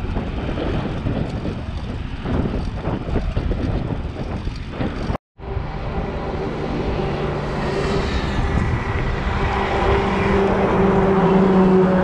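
Wind rumbling on the camera microphone as a bicycle rides along a highway. After a short break about five seconds in, the steady drone of a truck's engine comes up from behind and grows louder.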